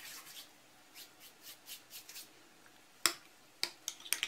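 Faint rustling of dried oregano crumbled between the palms over a glass bowl, then a few sharp clicks of a metal spoon against the glass bowl from about three seconds in.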